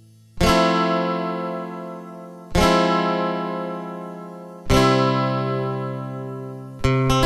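Background music on acoustic guitar: three chords strummed about two seconds apart, each left to ring and fade, then a quicker strumming pattern near the end.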